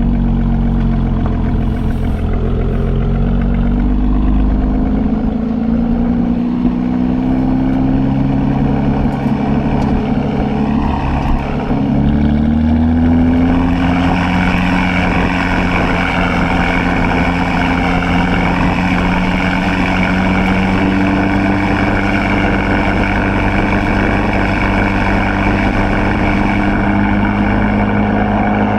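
2016 Chevrolet Camaro RS engine through a Borla ATAK axle-back exhaust, pulling under acceleration. Its note rises in pitch several times, with short breaks between the climbs, then settles into a steady drone at cruise for the second half.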